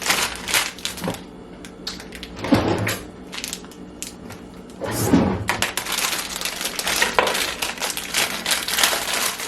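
Crinkling, rustling handling noise as jalapeño peppers are handled for rinsing, with one stretch near the start and a longer one over the last four seconds. Two short louder bursts come about 2.5 and 5 seconds in.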